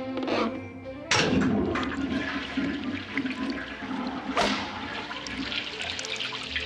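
Sudden rush of water starting about a second in and running on, with a second surge about four seconds in, over faint background music.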